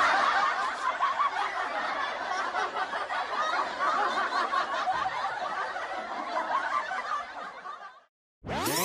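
Laughter sound effect: a dense, continuous laugh track that starts abruptly and fades away, stopping about eight seconds in.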